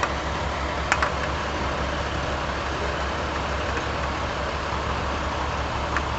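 Steady low mechanical hum in the background, with a couple of light clicks about a second in and near the end.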